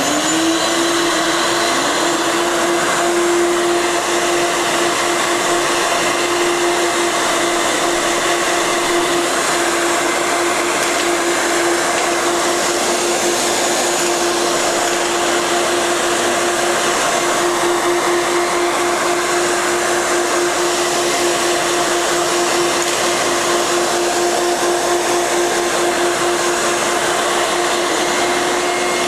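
Ruwac WS2320 industrial vacuum running steadily at full speed, a constant motor whine over a rush of air, with its 32-inch floor sweep nozzle drawing in sand, metal washers and plastic grindings.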